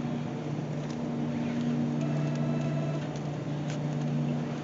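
Grocery store background: a steady low hum with a few faint clicks and rattles.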